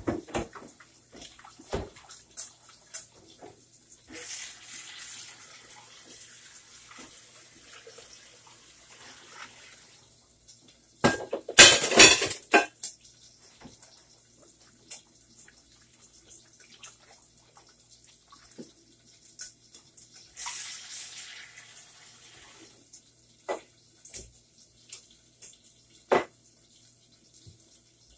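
A kitchen tap runs in short spells, with one loud gush lasting about a second and a half near the middle. Between the spells, dishes and utensils clink and knock.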